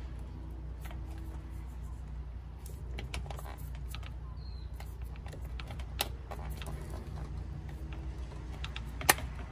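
Flathead screwdriver clicking and scraping against a small metal factory hose clamp on a coolant expansion tank hose as it is pried at: scattered light clicks, a sharper one about six seconds in and the loudest near the end.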